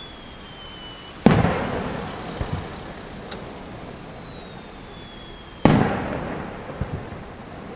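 Aerial firework shells going off one at a time: two sharp booms about four seconds apart, each echoing away and followed by a couple of small pops. Before each boom a thin whistle falls in pitch.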